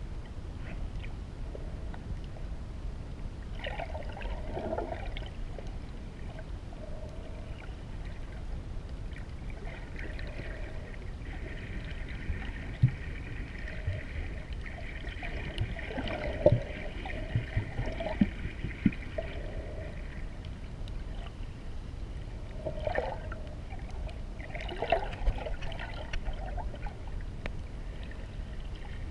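Underwater sound heard through a camera's housing: a steady low water rumble with scattered gurgles, a faint whine through the middle, and a handful of sharp knocks.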